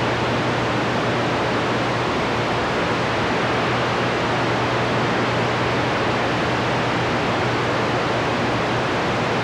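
CB radio receiver on channel 28 giving out steady static hiss, with no station coming through. A low steady hum runs under the hiss.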